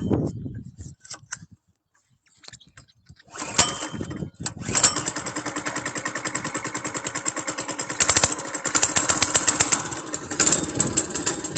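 Small single-cylinder engine of a Tote Gote trail bike starting about three and a half seconds in, then running at a slow, even idle with each firing stroke heard separately.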